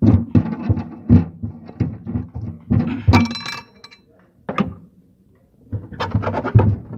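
Repeated knocks and clattering of objects being tugged loose and shifted around in a car's trunk, with a brief metallic clinking ring about three seconds in. The knocking pauses for about a second and a half, then resumes in a quick burst near the end.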